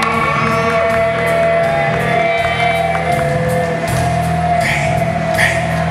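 Live rock band playing: electric guitars and drums through the PA, with one long note held from about half a second in to the end.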